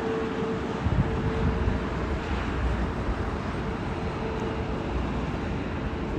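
Korean Air Airbus A380-800 taxiing at low power: a steady jet engine hum with a steady mid-pitched tone, and a low rumble that comes up about a second in.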